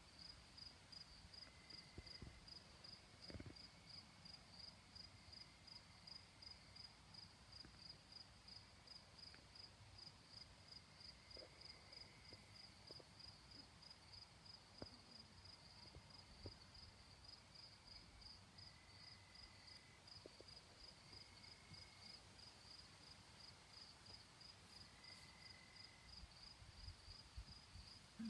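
Faint cricket chirping steadily: a high chirp repeated evenly, a few times a second, with a few soft knocks.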